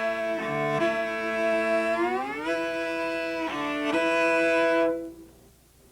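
Solo cello bowing sustained notes in thumb position, joined by a slow upward slide between notes about two and a half seconds in. The playing stops about five seconds in.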